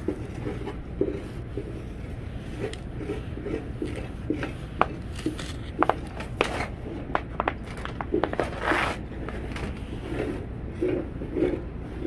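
Wooden pole end scraping and scratching through fresh snow in many short strokes as letters are drawn, with a few sharp clicks midway, over a steady low rumble.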